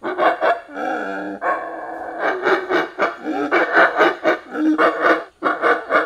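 Monkeys yelling: a quick run of short calls, one longer wavering call about a second in, then many short calls close together.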